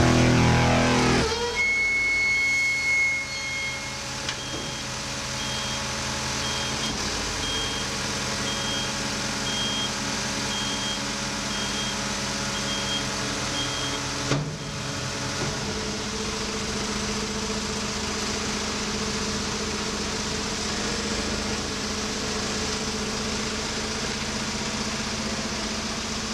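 Macro M60 compact street sweeper running steadily while its hopper lowers, with a repeating beep of about one and a half a second over the first half. A single knock comes about halfway through, then the engine and hydraulics run on steadily.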